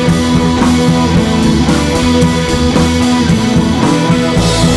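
Loud rock music with electric guitar, bass and drums, played over a large sound system during a sound check.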